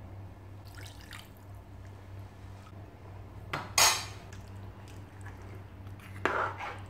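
Two tumblers of water poured into a pressure cooker of chicken curry, with clinks of utensils; two short louder splashes come a few seconds apart, about midway and near the end.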